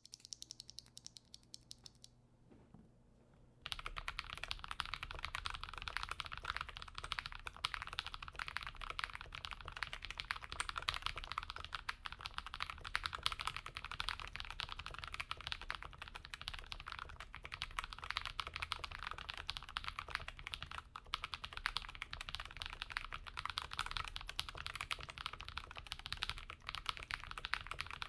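Typing on a FancyAlice66 mechanical keyboard with lubed and filmed AEBoards Raed R2 switches, a PC plate and GMK keycaps. A few light keystrokes and a brief lull give way to fast, continuous typing about three and a half seconds in.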